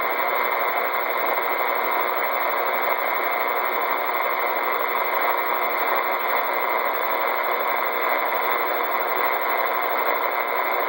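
Steady CB radio static hissing from the receiver's speaker, a dense even hiss cut off below and above by the radio's narrow audio band, with no voice on the channel.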